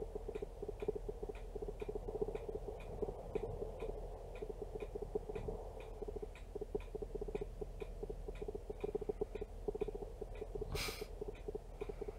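Recording noise from a camera that keeps hunting for focus: a steady low buzz with faint, even ticks a little over twice a second. A short rustling hiss comes about eleven seconds in.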